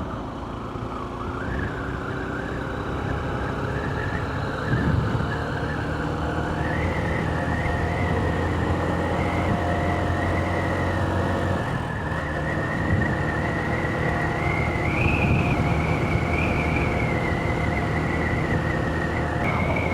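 Honda CB125F's single-cylinder engine running at road speed under wind buffeting, its pitch rising slightly over the first few seconds. Over it sits a steady high whistle from the gusty wind, which climbs a little in pitch early on.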